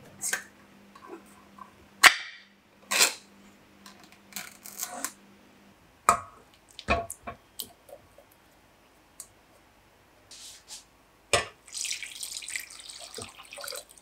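Ring-pull can of chopped tomatoes snapped open with a sharp click and its lid torn back, then the tomatoes slopping out of the can into a stainless steel pot with a few knocks of can against pot. Near the end water hisses into the emptied can.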